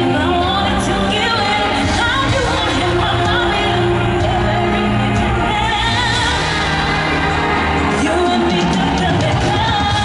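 Live pop music: a female vocal trio singing into microphones over loud amplified backing music in an arena concert.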